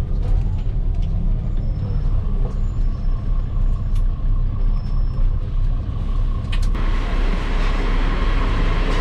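Airport apron bus running with a low engine rumble as it pulls in and stops. About seven seconds in, its doors open with a short burst of air and the sound turns suddenly brighter and fuller.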